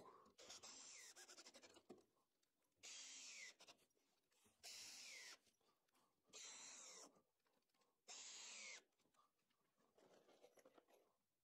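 Cordless drill run in short, faint bursts into a timber frame. After a first run near the start come four separate runs of under a second each, their whine dropping in pitch as each one stops.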